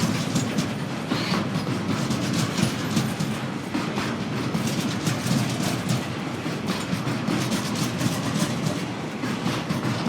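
Freight train of log and empty wagons rolling past, with a steady rumble and rapid clickety-clack of wheels over the rail joints.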